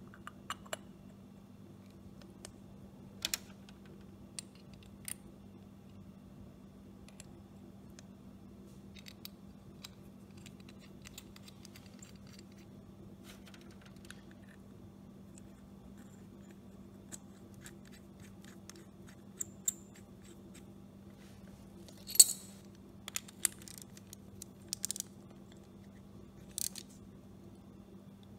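Small metallic clicks and taps as a Predator generator's carburetor is reassembled by hand: the steel float bowl being fitted and its bolt threaded in. A sharper click comes about three-quarters of the way through, followed by a few more, over a steady faint hum.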